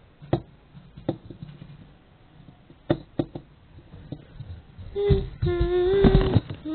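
A few light knocks and taps, then, about five seconds in, a voice humming a held note, with some low thumps of handling under it.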